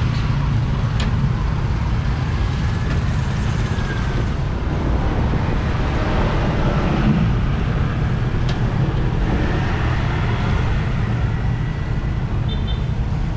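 Street traffic: a steady rumble of passing vehicle engines, with a couple of brief clicks.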